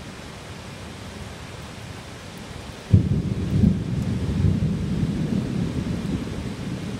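Thunder over steady heavy rain: a sudden sharp clap about three seconds in, followed by a low rolling rumble that slowly fades.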